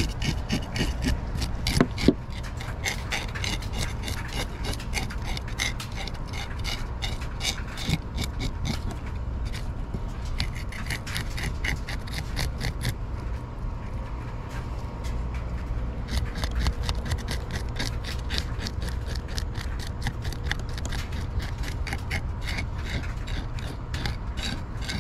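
Handheld serrated fish scaler scraping the scales off a small mangrove snapper in quick repeated strokes, easing off for a few seconds about halfway through before picking up again.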